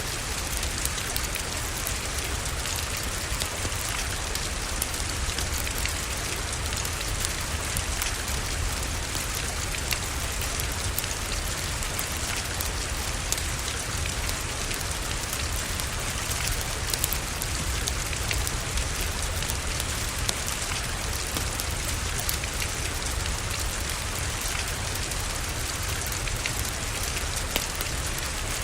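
Steady rain falling, an even hiss with a low rumble underneath and many small sharp clicks scattered through it.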